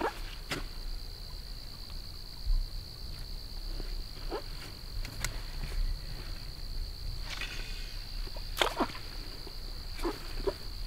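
Steady high-pitched insect chorus, with a few short sharp clicks and swishes scattered through it, the loudest about two thirds of the way in.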